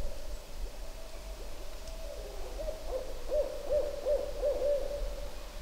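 Several animals calling, some of them distant: many short rising-and-falling hoot-like notes at one pitch, overlapping, over a held note at the same pitch.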